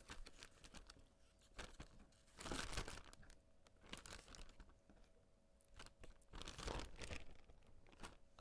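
Plastic food bag crinkling and rustling as raw chicken wing pieces are put into it, in two louder bursts about two and a half and six and a half seconds in, with small clicks between.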